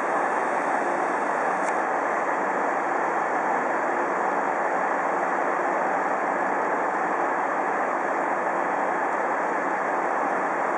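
DR Class 23.10 steam locomotive standing with steam hissing from around its cylinders: a steady, unbroken rushing noise with no exhaust beats.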